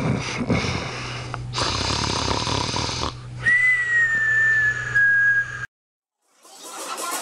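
Snoring: rasping snores, then a long high whistling breath out that falls slightly in pitch, cut off abruptly. Music starts near the end.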